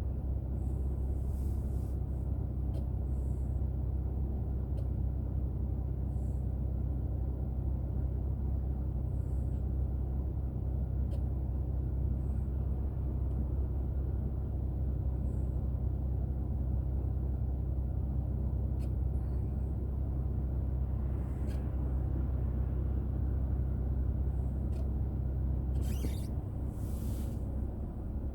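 Steady low rumble of a car driving on the road, engine and tyre noise heard from inside the car, with a few faint ticks and two short hisses near the end.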